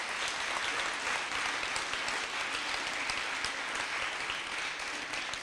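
A large seated audience applauding steadily, the clapping easing off near the end.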